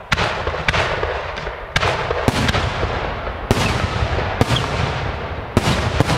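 150 mm aerial firework shells launching and bursting: a string of heavy bangs roughly a second apart, each trailing off in a long rolling rumble.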